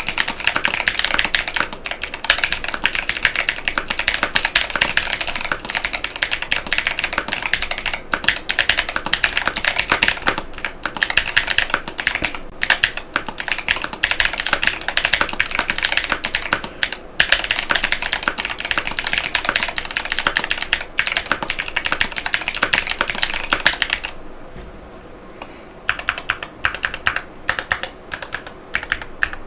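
Fast, continuous typing on a HYTE Keeb TKL mechanical keyboard with Outemu Panda switches and PBT Cherry-profile keycaps, a dense stream of key clacks. Near the end the typing stops for about two seconds, then picks up again with sparser keystrokes.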